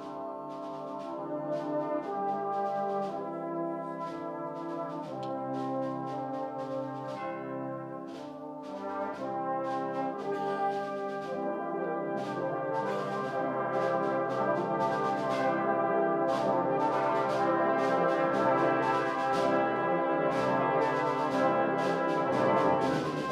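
Brass band playing sustained chords over steady percussion strikes, growing gradually louder.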